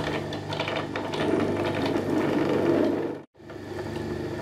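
Small bench drill-mill running: a steady motor hum with a whirring, rattling gear-train noise, heaviest in the middle. It breaks off for a moment about three seconds in and then carries on.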